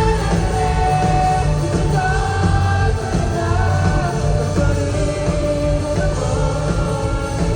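Live rock band performance: a lead vocalist sings a slow melody in long held notes over full band backing.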